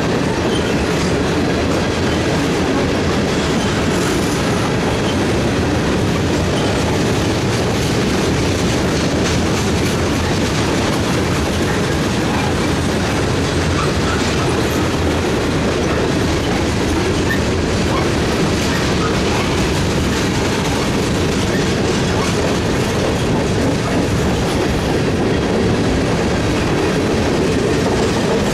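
Freight train's tank cars and covered hoppers rolling past close by: steady noise of steel wheels on the rails.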